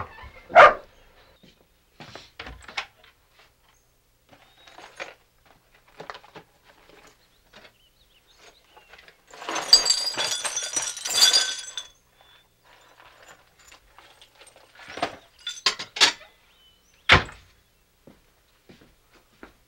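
Dry cereal poured from a box into a bowl, a rattling patter lasting a couple of seconds midway. Around it are scattered small kitchen clinks and knocks, a short sharp sound right at the start, and one loud thump near the end.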